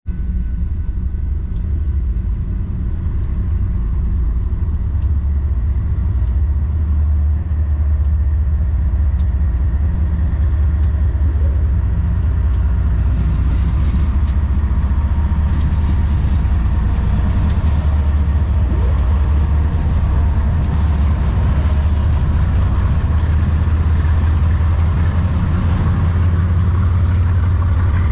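BNSF diesel-electric locomotives of a freight train approaching and passing close by, their engines a loud, steady low rumble. Sharp ticks come every second or two, and the higher sound grows about halfway through as the locomotives come alongside.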